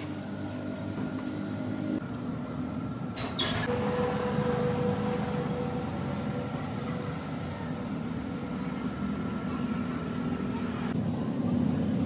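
A steady low rumble like a nearby motor vehicle's engine, with faint steady tones over it, and one sharp knock about three seconds in.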